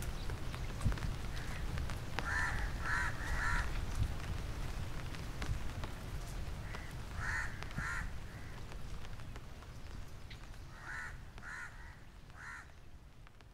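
Crows cawing in groups of two or three harsh calls, a few seconds apart, over a steady low rumble. The sound fades out near the end.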